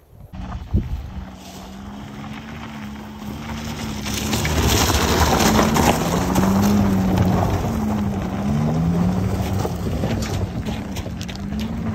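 Maruti Alto's small three-cylinder petrol engine revving up and down under load as the car is driven up a loose gravel track where the tyres struggle for grip. The engine pitch rises and falls several times over a loud rushing noise, growing louder about four seconds in.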